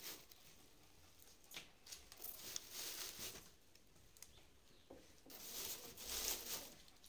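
Dry grass packing straw rustling and crackling in a cardboard box as hands press mangoes into it, in several short bursts.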